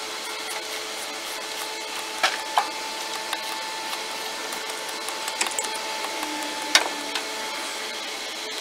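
Power steering pump pulley being worked off its shaft with a pulley puller: a few sharp metal clicks and knocks from the tool and pulley over a steady hiss.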